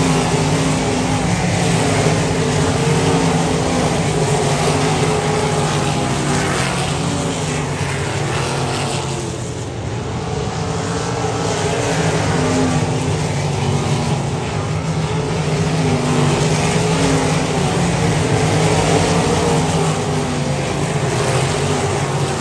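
Winged dirt-track sprint cars racing on the oval, their V8 engines running hard at high revs, the pitch rising and falling as they power down the straights and lift for the turns. The sound dips a little about ten seconds in as the pack moves away, then builds again.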